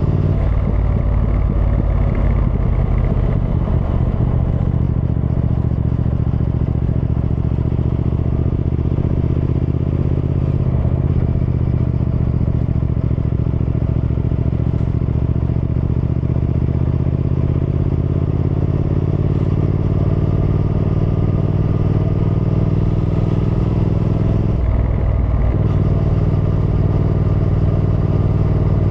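Triumph Thruxton R's 1200 cc parallel-twin engine running steadily under way, its note climbing slowly through the middle, with a brief break in the note about 25 seconds in.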